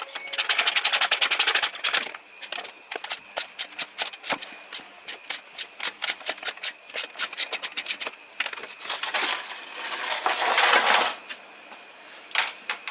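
Ratchet wrench clicking as bolts holding a plastic underbody shield are undone: fast runs of clicks at the start and again about two-thirds through, and slower clicks a few a second between.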